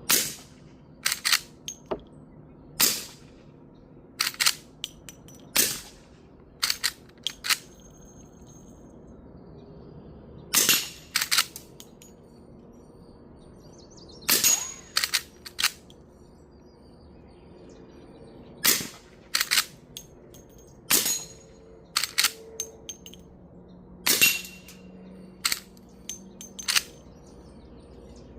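Suppressed lever-action rifle firing subsonic 158-grain .38 Special rounds through a Silencerco Osprey 45: about eight fairly quiet shots spaced a few seconds apart. Between the shots come quieter sharp clicks and metallic hits, some of them bullets striking and ricocheting off steel.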